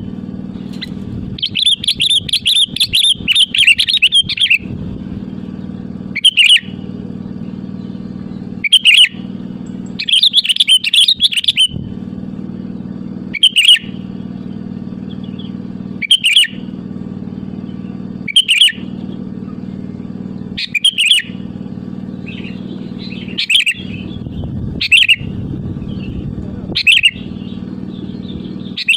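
Sooty-headed bulbul singing: two bursts of rapid chattering song, then short loud phrases repeated about every two and a half seconds. A steady low hum runs underneath.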